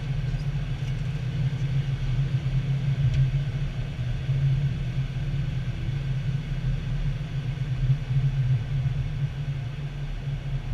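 Cockpit noise of a Boeing 737 taxiing: a steady low rumble of the airliner's engines and rolling gear, heard from inside the flight deck.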